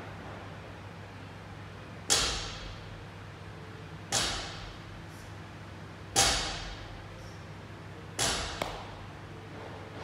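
Loaded barbell set down on the floor between deadlift reps: four heavy thuds about two seconds apart, each with a short ringing fade, the last followed by a quick second clank. A steady low hum runs underneath.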